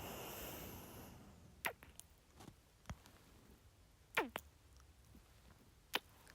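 A long exhaled breath fading out in the first second, then soft, wet kisses and lip smacks close to the microphone, about five in all. The loudest comes about four seconds in.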